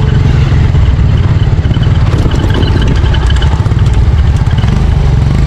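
Motorcycle engine running steadily under way, a low throb with fast, even pulsing.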